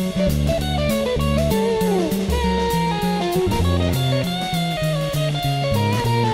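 Jazz fusion trio music: an electric guitar plays a melodic lead line with bent, sliding notes over bass and a drum kit keeping a steady beat on the cymbals.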